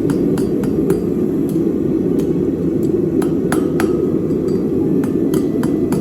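Hand hammer striking work on a Chinese-style turtle anvil, about two to three blows a second in an uneven rhythm, a few leaving a brief ring. A steady low rushing noise runs under the strikes throughout.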